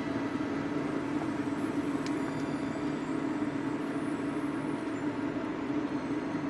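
Induction hob at work with a pot on it: a steady rushing noise with a constant low hum, from the hob's cooling fan and the cookware heating.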